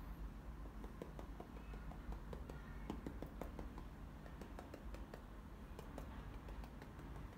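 Paintbrush dabbing acrylic paint onto a canvas: faint, irregular little taps, several a second, over a low steady hum.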